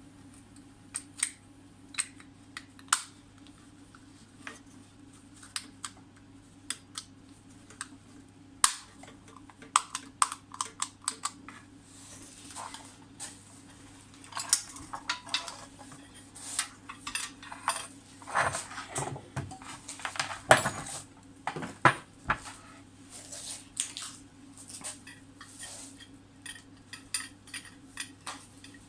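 Light metallic clicks and clinks of small metal lamp parts and hand tools being handled, many short strikes that come thickest in the middle, over a steady low hum.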